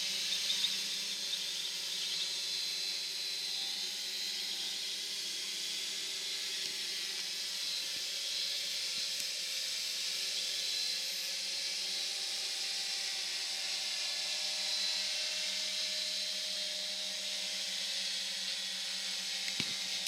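Electric motors and propellers of hobby multirotor drones in flight: a steady whirring hiss with a fainter hum that wavers in pitch as they manoeuvre.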